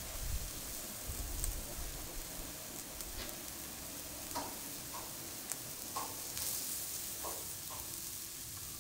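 Lean beef steak frying on a hot grill pan: a steady sizzling hiss with scattered pops and crackles, several of them in the second half.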